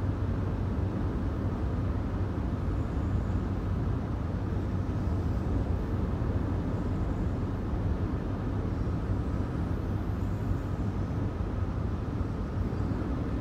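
Steady low rumble of a car's engine and road noise, heard inside the cabin while the car is driving.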